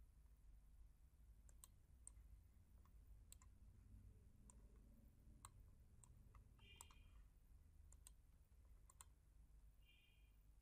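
Near silence with faint, scattered computer-mouse clicks, a dozen or so at irregular spacing. Two brief faint high-pitched chirps come in, one about seven seconds in and one near the end.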